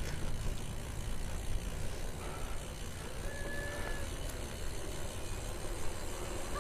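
Steady low rumble of a BMX bike in motion: wind on the microphone and tyres rolling on a concrete sidewalk.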